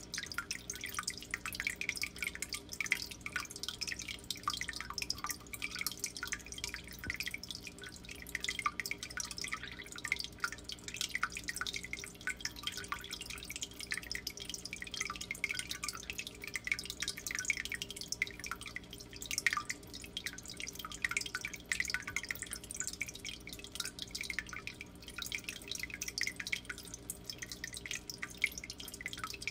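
Water dripping and trickling steadily into a turtle tank in dense, irregular small splashes, over a faint steady low hum.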